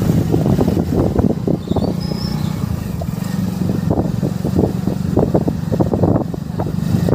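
Motorcycle engine running steadily while riding along a rough dirt road, with wind buffeting the microphone in frequent gusts.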